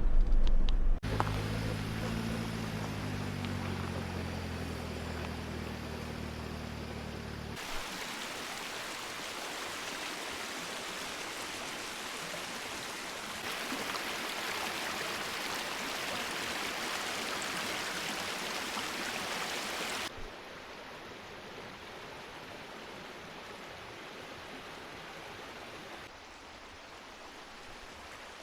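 River water rushing steadily, its loudness stepping up and down suddenly a few times. Under the first several seconds runs a low hum made of a few steady tones, which stops abruptly before the water comes up louder.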